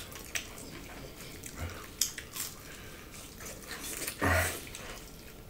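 Eating sounds from two people eating with their hands: wet chewing and mouth smacks with scattered small clicks as fingers work through rice and saucy pork, and one louder burst about four seconds in.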